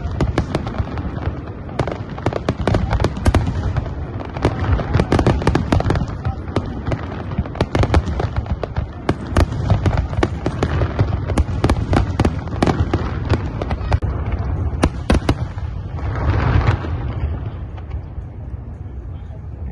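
Fireworks display: a dense, rapid string of bangs and crackling pops from aerial shells, thinning out in the last few seconds, with a brief rushing noise near the end.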